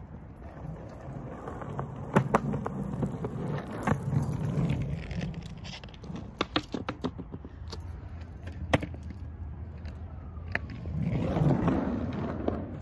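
Skateboard wheels rolling over rough concrete: a gritty rumble that swells as the board passes close, twice, with several sharp clacks of the board along the way.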